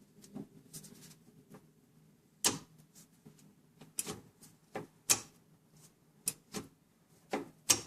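Hand tools clicking and tapping on metal as the mounting of a car's reverse-light micro switch on the shift linkage is snugged up: several separate sharp clicks at irregular intervals, over a faint steady low hum.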